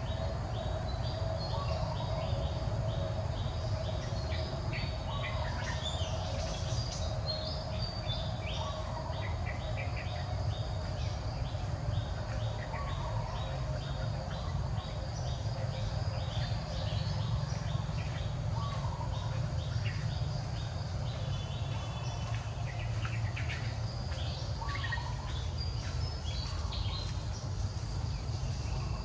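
Birds chirping in the open, one repeating a short high note about twice a second through the first half, with other scattered calls, over a steady low rumble.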